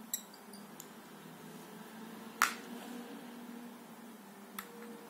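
Sharp metal clicks of a small precision screwdriver and its bits being handled: a small click at the start, a loud one about two and a half seconds in, and a lighter one near the end, over a steady low hum.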